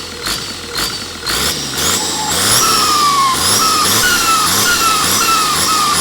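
Engine fitted with a Holset H1C turbocharger being blipped over and over, about twice a second from about a second and a half in. Each blip brings a high turbo whistle that slides down as the revs drop. A few sharp clicks come at the start.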